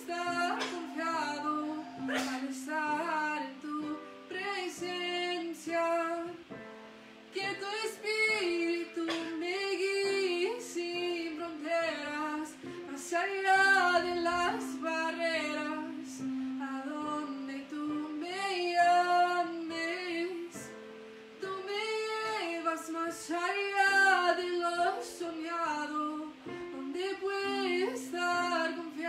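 A woman singing a slow worship song, accompanying herself on a digital keyboard with held chords that change every few seconds.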